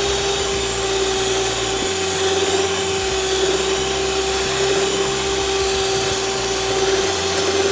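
Electric mixer running steadily on bread dough: a loud, even motor whine at one constant pitch, without change in speed.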